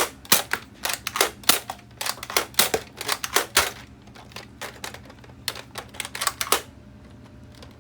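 Nerf Disruptor dart blaster being primed and fired repeatedly: a quick run of sharp plastic clacks and pops, a short pause, then a shorter second run.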